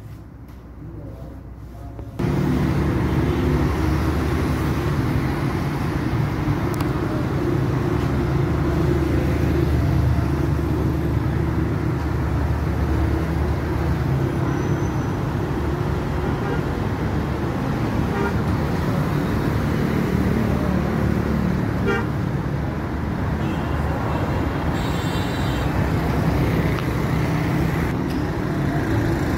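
Busy city street traffic at night: the steady noise of engines and tyres, with a car horn sounding briefly near the end. It starts abruptly about two seconds in, after quiet shop room sound.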